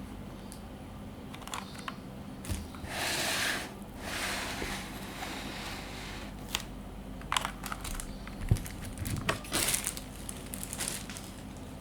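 Packaging being handled: crinkling and rustling of wrapping, then a run of scattered light clicks and knocks.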